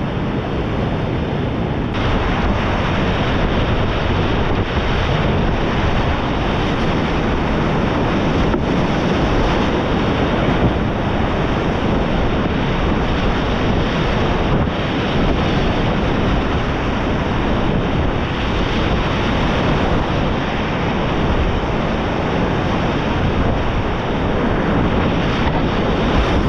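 Steady rushing of whitewater rapids, with wind buffeting the microphone.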